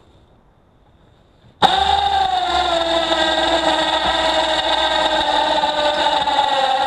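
Can-Am Outlander ATV engine starting about a second and a half in, then running steadily at idle, its pitch settling a little lower just after it catches.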